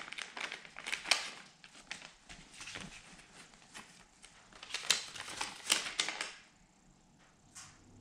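Crinkling plastic packaging with a run of small clicks and crackles as parts are handled, dying away after about six seconds.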